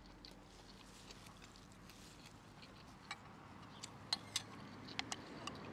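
Faint clicks and taps of someone eating, with a few sharper clicks in the second half.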